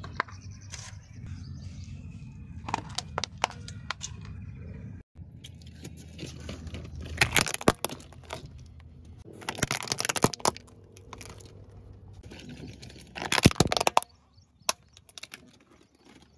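Hard plastic toys cracking and crunching under a slowly rolling car tyre: a few clusters of sharp snaps, the loudest near the end, over a low steady rumble.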